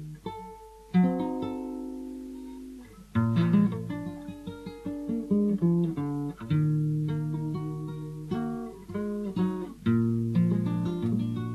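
Acoustic guitar playing an instrumental interlude: strummed chords that ring and fade, with runs of plucked single notes between them.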